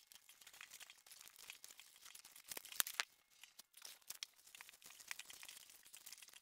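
Plastic cling wrap (Saran wrap) crinkling and crackling as it is pulled off the roll and wound tight around an epoxy-wet carbon fiber hockey stick blade, with a sharper crack about halfway through.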